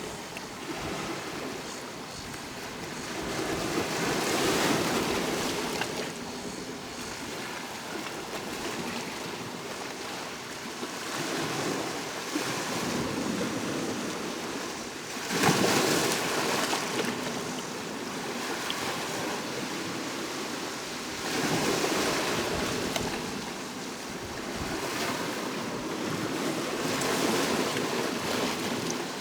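Sea waves breaking and washing onto the shore, swelling louder every five to seven seconds, with the sharpest break about fifteen seconds in.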